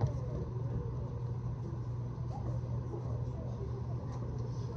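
Steady low hum of an indoor venue with faint, indistinct crowd chatter in the background.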